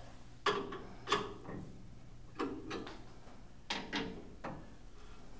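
Several sharp metal clicks and knocks in three small clusters, from screwdrivers and hands working the drive pulley (sheave) of a Tormach Speeder head as it is tightened and turned by hand.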